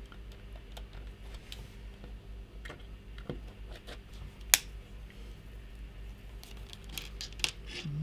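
Small side cutters snipping a plastic pin-header strip: one sharp snap about halfway through, with light clicks of the header pins being handled and a low steady hum underneath.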